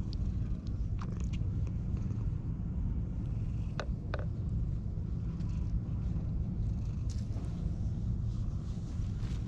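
Tabby-and-white cat purring steadily, close up, while being stroked under the chin. A couple of light clicks come about four seconds in.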